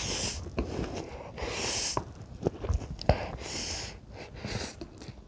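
A person eating very spicy instant noodles: three hissing slurps about a second and a half to two seconds apart, with wet chewing clicks between them.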